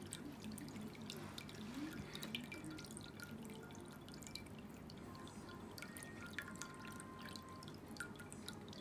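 Water trickling and dripping from the spouts of an electric pet drinking fountain into its bowl, many small irregular drips, with a faint low steady hum beneath.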